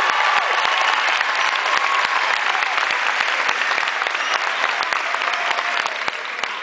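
Large crowd applauding, dense clapping with some cheering voices mixed in, slowly dying down near the end.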